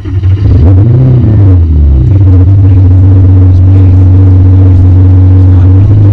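Ferrari engine starting, heard from inside the cabin: it fires, flares up in revs about a second in and drops back, then settles into a steady loud idle.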